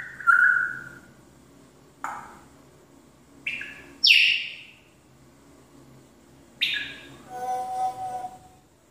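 African grey parrot giving a string of short, sharp whistled calls, most falling in pitch, about five in all. It ends with a longer, lower call held on steady tones.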